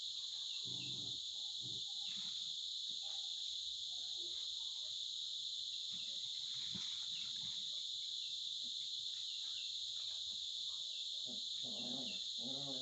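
Steady high chirring of insects, with faint, scattered soft low sounds and a short pitched sound near the end.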